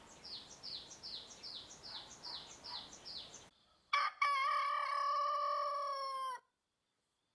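A small bird calls a quick run of high notes, each falling in pitch, about three a second, over a faint hiss. About four seconds in, a rooster crows once: one long call of about two and a half seconds that stops abruptly.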